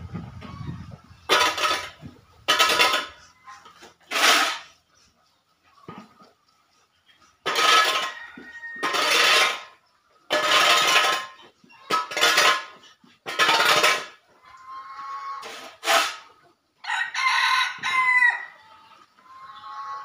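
Steel shovel blade scraping dung off a concrete floor in repeated short strokes, one every second or two. Near the end a rooster crows.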